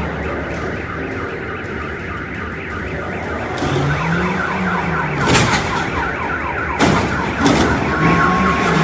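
A car alarm sounding, a fast repeating warbling chirp. About halfway through and near the end come three sharp bangs or knocks.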